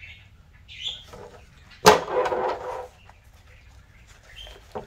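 A sharp click about two seconds in as a shoulder strap's snap-hook clip snaps on the bag, followed by about a second of fabric rustling as the bag is handled, with fainter handling clicks around it.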